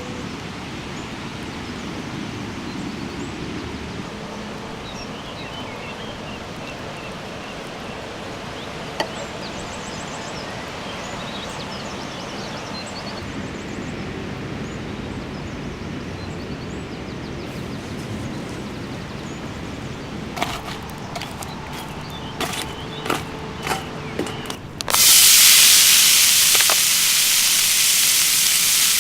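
A few sharp clicks and knocks, then about 25 seconds in a loud, sudden sizzle starts as beef steaks hit a hot cooking surface over a campfire and begin to sear. Before that there is only a steady outdoor background hiss.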